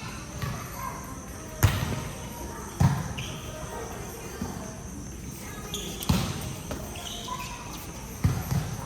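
Basketballs bouncing on a hard gym floor in a large echoing hall: four sharp thuds a second or more apart, with a steady background of faint voices.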